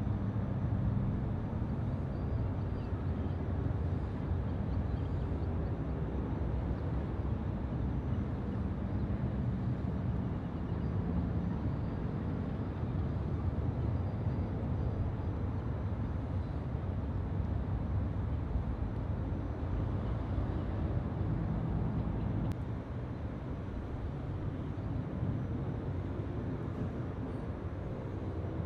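Jet airliner engines at take-off thrust, a steady deep rumble that drops a little about twenty-two seconds in.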